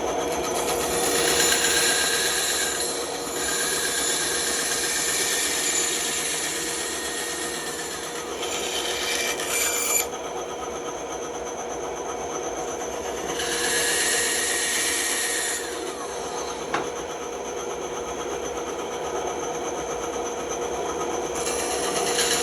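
Bandsaw running steadily, its blade cutting into wood in several passes of a few seconds each with a high rasping sound, and running free in between.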